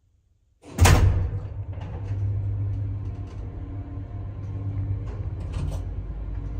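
ZREMB passenger lift starting off: a loud clunk about a second in as the car sets off, then the steady low hum of the hoist drive and the rumble of the car travelling up or down the shaft, with occasional light clicks and rattles.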